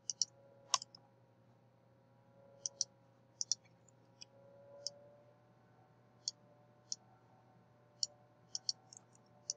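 Computer mouse button clicks, single and in quick pairs, scattered irregularly over a faint steady hum.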